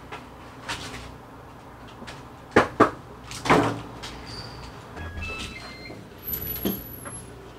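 Three sharp knocks and clunks as things are handled, then a short run of electronic beeps at different pitches and a door unlatching and swinging open with a thump. The beeps and unlatching fit a digital keypad door lock.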